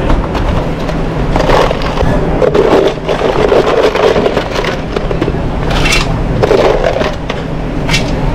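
Mussel shells clattering and scraping as they are scooped from a stainless steel pan into a plastic deli container, in several rattling bursts with a couple of sharp clicks. A steady low hum runs underneath.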